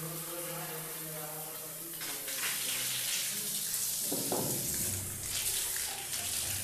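Water gushing from a bathroom diverter's wall spout and splashing on the tiled floor as the supply is opened to test the pressure after the diverter cartridge was cleaned. A steady hum comes first; the rush of water starts about two seconds in and grows louder, with a heavier splash around the middle.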